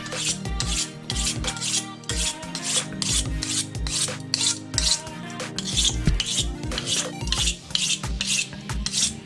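Wooden-handled fish scaler scraping the scales off a striped bass in quick repeated strokes, about three a second.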